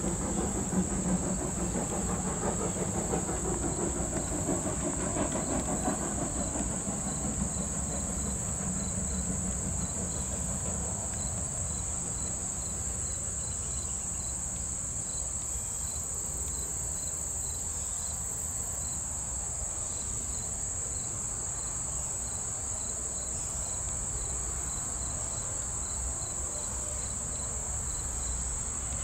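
Insects trilling in a steady, high, unbroken drone, with a fainter chirp repeating about twice a second through the second half. Under it, a departing train's low rumble fades away over the first ten seconds or so.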